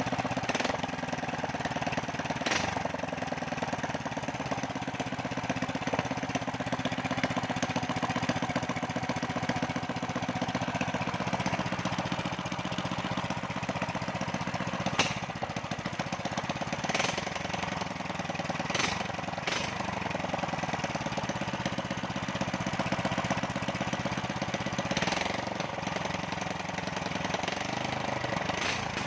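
Small 8 hp petrol engine fitted with a 30 mm Keihin carburettor, running steadily with its speed drifting up and down a little. A few sharp clicks or pops are heard over it at irregular times.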